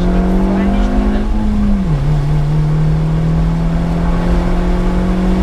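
Opel Corsa C GSi rally car's engine pulling hard at high revs, heard from inside the car. About two seconds in the revs drop sharply with an upshift, then climb steadily again under full throttle.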